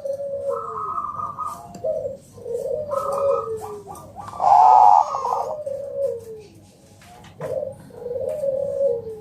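Zebra dove (Bangkok-bred perkutut) singing its cooing song: about four repeated phrases of quick stuttering notes, each ending in a falling coo, with one phrase near the middle much louder.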